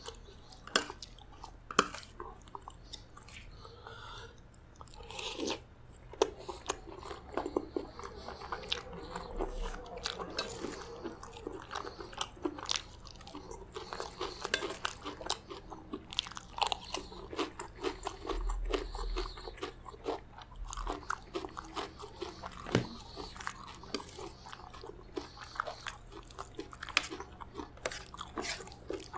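Close-miked chewing and crunching of chicken gizzard curry with rice and salad: wet mouth sounds with many crisp crunches. A metal spoon clinks and scrapes on the steel plate between mouthfuls.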